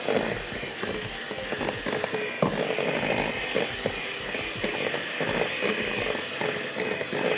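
Electric hand mixer running steadily, its beaters whisking eggs into creamed butter and sugar in a glass bowl, with a few knocks along the way.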